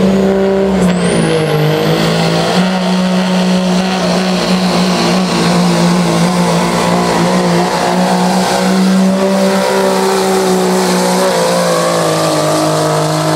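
Diesel pickup truck's engine held at high revs under full load while pulling a weight-transfer sled: a loud, steady drone. A high whistle rises about a second in, and the revs dip slightly near the end.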